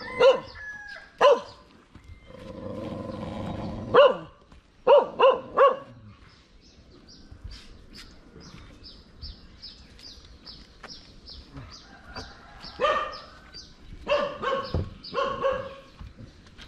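A dog barking in short runs of two to four barks, with pauses between them. Between the runs there is a brief stretch of noise, then a run of quick high chirps, about three a second.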